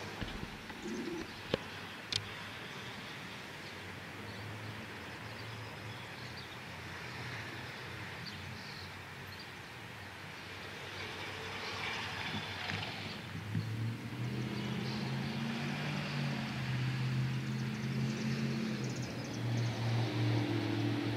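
A vehicle engine running, with steady low tones coming in and growing louder from about two-thirds of the way in, over outdoor background noise. A couple of sharp clicks sound about two seconds in.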